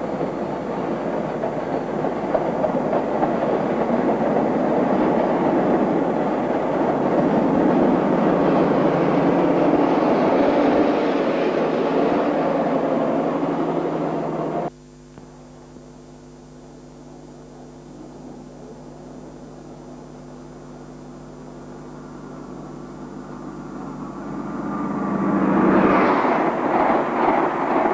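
British Rail High Speed Trains (InterCity 125) passing at speed, recorded on a Super 8 cine camera's own microphone: a loud rush of coaches that cuts off abruptly about halfway through. A second HST then approaches, growing louder until its power car passes close by near the end.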